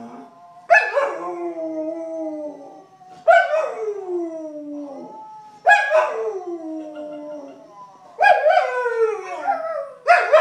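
A dog howling in a series of long howls, a new one about every two and a half seconds, each starting high and sliding down in pitch.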